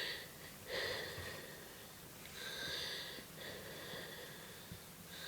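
A person breathing close to the microphone: a few soft, hissy breaths in and out, about one every second and a half to two seconds.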